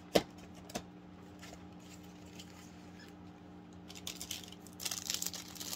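A sharp click just after the start and a softer one a moment later, then about two seconds of rapid crinkling near the end as snack packaging is handled.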